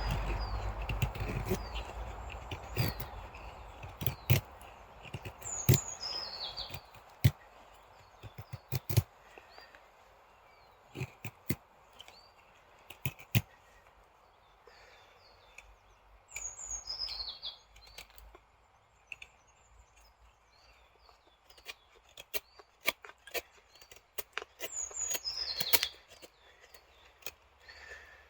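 A songbird sings a short falling phrase four times, several seconds apart, over scattered sharp clicks and cracks. A hiss at the start fades away within the first few seconds.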